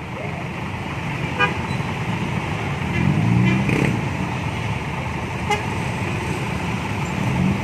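Street traffic: a coach bus, cars and motorcycles running their engines in a slow jam, with a horn sounding a few seconds in.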